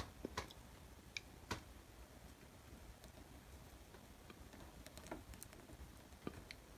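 Near silence with a handful of faint, scattered clicks of steel tweezers and a small metal brake arm being handled as a strip of friction material is pressed onto the arm's shoe.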